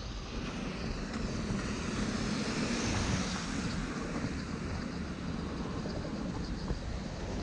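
A vehicle passing on a rain-wet street: a steady tyre-and-engine hiss that swells to its loudest about three seconds in, then eases off.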